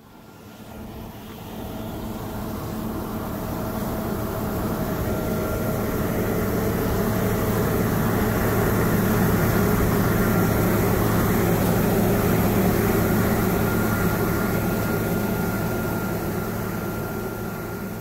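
John Deere T670i combine running as it harvests, a steady machinery drone with a few held tones. It fades in, is loudest in the middle and fades out near the end.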